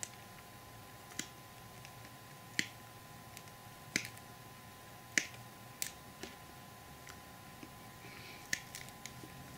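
Small snips cutting off branches of a model blossom tree: a string of sharp, separate snips, about one every second or so.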